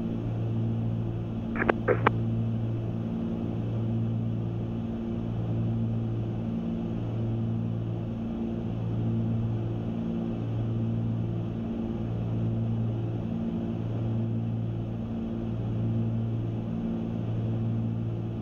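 Cessna 310Q's twin flat-six piston engines and propellers droning steadily, heard from inside the cockpit. A slow, even throb rises and falls about every second and a half.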